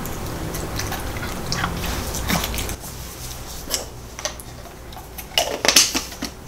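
Pomeranian chewing and smacking its lips on a soft chewy treat: a scatter of short wet clicks and smacks, with a louder cluster of clicks near the end.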